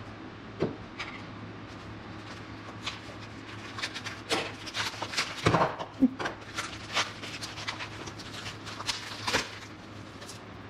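Packing paper rustling and crinkling as small reloading-press parts are unwrapped, with a few sharp knocks of metal parts set down on a steel bench top, the loudest about halfway through. A steady low hum runs underneath.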